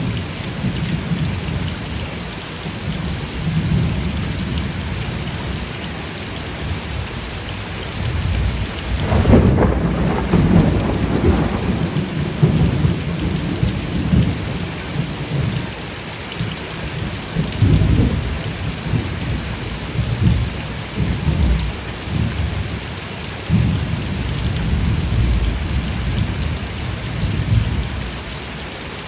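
Steady rain with thunder rumbling again and again, the loudest roll about ten seconds in; the rumbling fades away near the end.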